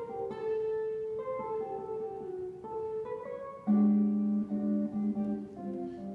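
Guitar music: a melody of plucked notes, with lower, louder notes coming in just past halfway.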